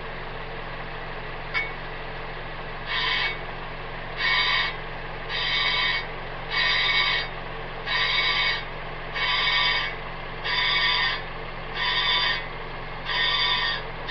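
Warped front brake rotor rubbing the pad once per turn as it spins. From about three seconds in, a half-second scrape repeats about every 1.2 seconds over a steady engine hum. The rub is the sign of a rotor with runout, new but out of true.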